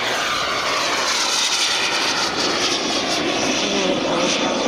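Twin JetCat P120 gas turbines of a quarter-scale RC English Electric Lightning jet running, a steady rushing noise with a high turbine whine.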